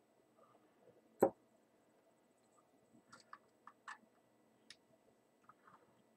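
Small metal clicks and taps of a screwdriver working on a Zenit E camera's metal body and prism mount: one louder sharp knock about a second in, then a scatter of light, irregular clicks.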